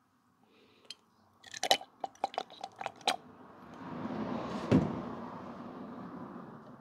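Bulb-type antifreeze tester being handled and squeezed: a quick run of clicks and taps, then a longer rushing noise with a single thump near the middle as coolant and air are drawn through the tester.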